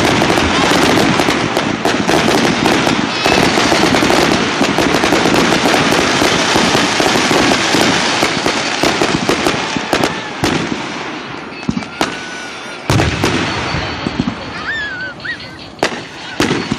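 Fireworks display: a dense barrage of rapid crackling and bangs that thins out after about ten seconds to a few separate sharp bangs, with faint whistling near the end.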